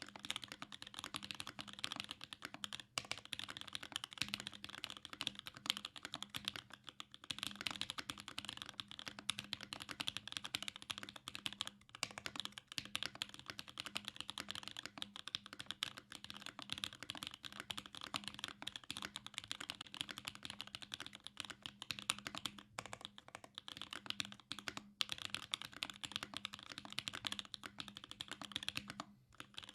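Fast, continuous typing on a J-01 Rev 1 custom mechanical keyboard with lubed Gateron Black Ink linear switches on a carbon fiber plate and GMK keycaps: a dense stream of keystrokes broken by a few short pauses.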